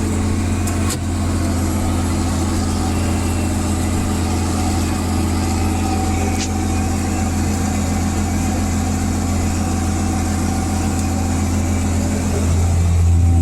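Tractor engine running steadily under load while pulling a grain drill, heard from inside the cab as a constant low drone. It gets slightly louder near the end.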